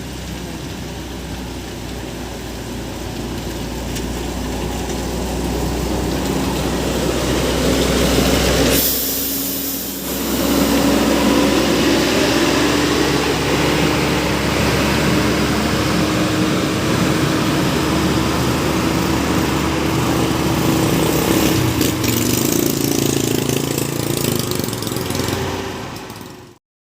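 A motor vehicle's engine running close by with road noise, growing louder over the first several seconds. After a brief dip, a steady engine note rises slowly in pitch, then the sound cuts off suddenly near the end.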